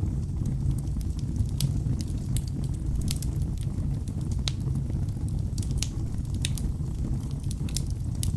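Wood fire burning in a fireplace: a steady low rumble of flames, with irregular sharp crackles and pops from the burning logs, several a second.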